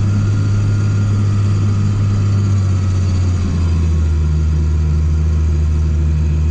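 Case IH tractor's diesel engine running steadily under load, heard from inside the closed cab; its pitch drops a little about three and a half seconds in, with a faint whine above the hum.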